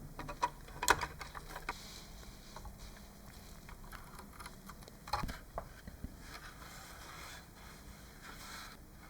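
Light clicks and taps of small hard parts being handled, a quick cluster about a second in and another just after five seconds, then soft intermittent rubbing or scraping.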